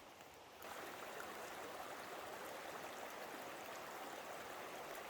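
Small creek running: a steady rush of flowing water that comes in abruptly about half a second in.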